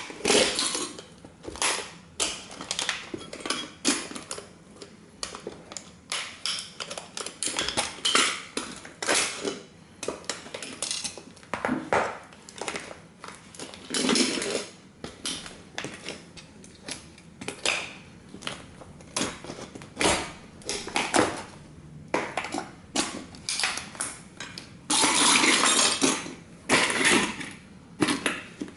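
Thin sheet tin of a vintage toy car crunching, crumpling and scraping under heavy lug-soled combat boots, in many irregular stomps and grinds with loose metal pieces clinking. Near the end comes a longer stretch of steady grinding.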